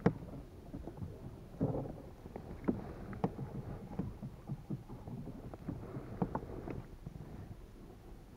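Irregular knocks, clicks and clatter of things bumping in a small boat, with a sharp knock at the very start and a low rumble of handling noise between the knocks.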